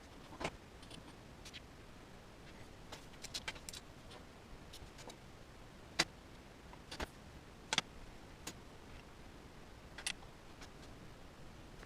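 Small plastic winch parts and hardware clicking and tapping as they are handled and fitted together by hand. The clicks come scattered, with a quick cluster about three seconds in and the sharpest about six seconds in.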